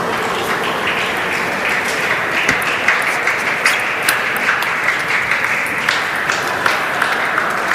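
Crowd applauding in a sports hall, an even patter with sharper single claps or clicks standing out from about two seconds in.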